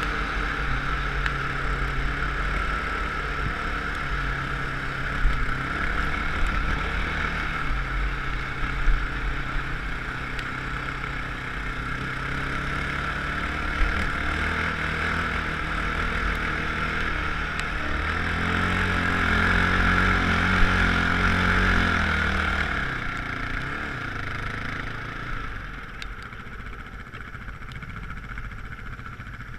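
Off-road vehicle engine running under way, its note stepping up and down in pitch, with a steady rush of wind over a helmet-mounted microphone. About three-quarters of the way through the engine note falls away and the sound quietens as the vehicle slows.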